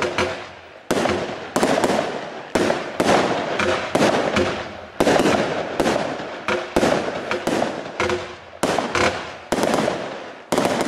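Absolute Fireworks Gold Rush 36-shot firework cake firing: a rapid run of sharp bangs, about two a second. Each bang trails off into a fading hiss before the next. The last shot comes near the end.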